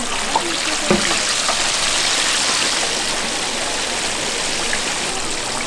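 Chicken deep-frying in hot oil, a steady sizzle, with a couple of light knocks from utensils in the first second or so.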